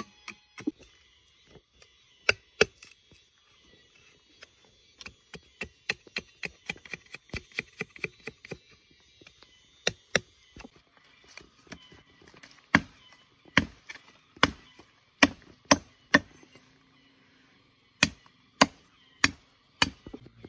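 Wood being chopped by hand: a run of quick, light cuts, then louder single blows spaced well under a second apart, a short pause, and four more blows near the end.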